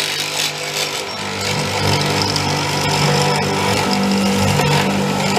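Multico K/3 hollow-chisel mortiser running, its electric motor humming steadily, the sound growing louder about a second and a half in as it cuts a square hole in very hard wood.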